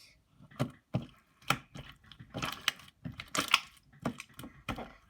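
Slime being squeezed and poked by hand, giving an irregular string of short wet clicks and pops.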